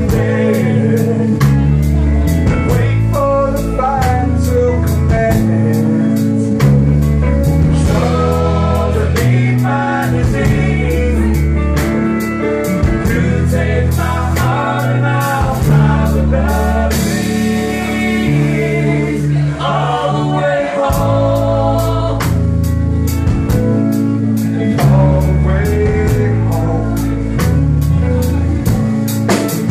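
A live rock band playing a song: a sung lead vocal over strummed acoustic guitar, electric guitar, bass notes and a drum kit keeping a steady beat.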